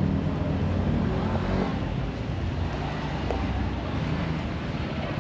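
Low engine rumble of a passing motor vehicle, heaviest in the first couple of seconds and then easing, over steady city street noise.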